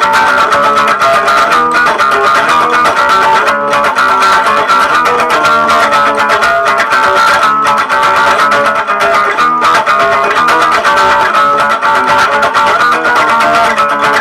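Instrumental music led by guitar, with a steady beat and no vocals.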